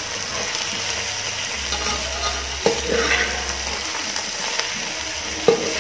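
Sliced potatoes frying with a steady sizzle in a metal pot while a metal spoon slowly turns them, the spoon clinking sharply against the pot twice.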